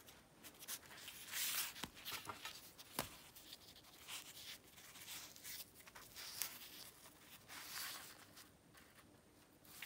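Faint crackly rustling as a hand peels back, tears and rolls up thin flatbreads fried on a dry pan, with a couple of sharp clicks about two and three seconds in.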